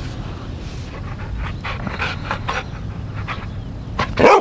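An Australian Shepherd–Airedale Terrier mix dog panting close to the microphone in quick, uneven breaths, with one short louder sound near the end.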